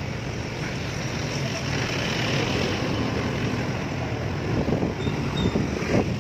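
Steady running noise while riding a Yamaha NMAX scooter through city traffic: the scooter's engine and road noise mixed with the surrounding cars.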